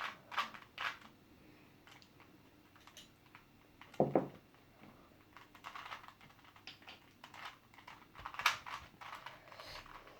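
Plastic Rubik's cube being twisted in quick turns, irregular clicking and clacking of its layers. A short low sound about four seconds in.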